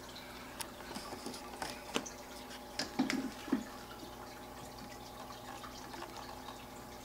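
Aquarium water trickling and dripping from the filter over a steady hum. A few short clicks and knocks come between about one and four seconds in.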